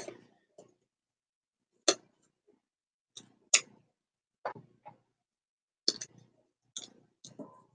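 Scissors clicking and snipping at the cap of a small plastic acrylic paint bottle while trying to cut it open: about a dozen short, sharp clicks at uneven intervals.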